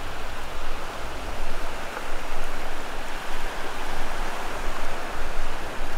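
Ocean surf breaking and washing up a sandy beach: a steady, uneven rush of waves.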